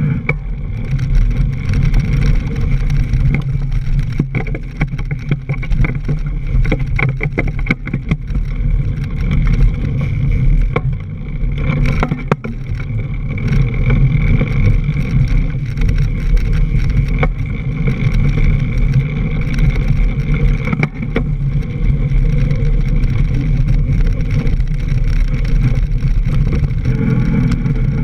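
Mountain bike rolling fast over a leaf-covered dirt trail, heard through a camera mounted on the bike: a loud, steady low rumble of wind and tyres on the ground, with rattles and knocks from the bike going over bumps, clustered in the first third and one sharp knock near the middle.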